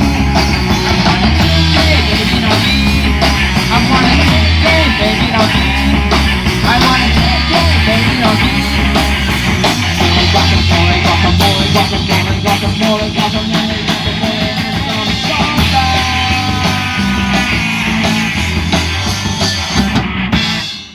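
Live rock band playing loud, with guitar, bass and a steady drum beat, stopping abruptly near the end.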